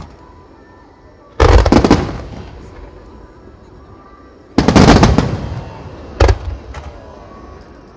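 Aerial firework shells bursting in quick volleys. A rapid cluster of loud bangs comes about a second and a half in, another about four and a half seconds in, then a single sharp bang about six seconds in, each trailing off in echo.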